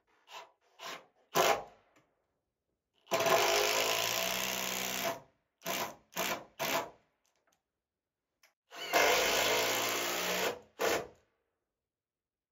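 Cordless drill/driver driving long LedgerLOK structural wood screws through a timber ledger board into the logs. It goes in a few short bursts, then a long steady run about three seconds in, more short bursts, and a second long run about nine seconds in.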